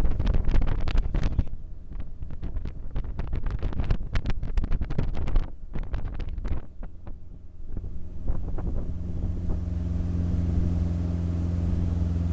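1985 Sea Sprite motorboat's engine running while underway, with wind gusting on the microphone for most of the first seven seconds. From about eight seconds in the wind drops and the engine is heard running steadily.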